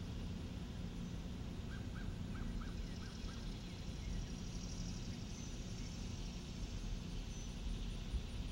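Outdoor ambience: a steady low rumble, with a bird calling a quick run of about six short chirps around two seconds in.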